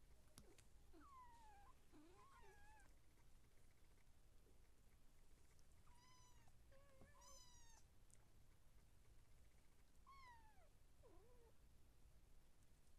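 Siamese kittens mewing faintly: high, thin mews that fall in pitch, in three short bouts with quiet between.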